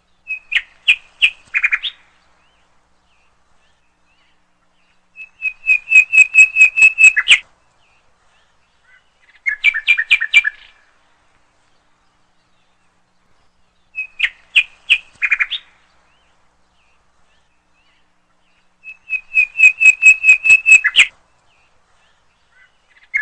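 Songbird singing: phrases of rapid high chirps, each one or two seconds long, with short silences between. Three distinct phrases recur in the same order, twice over.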